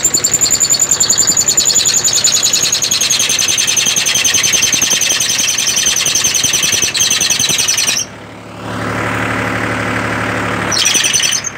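Belt-driven spray pump on a tractor-mounted sprayer running, a fast, evenly pulsing high-pitched sound. About eight seconds in it cuts off suddenly, leaving the lower hum of the tractor engine, and the pulsing starts again briefly near the end.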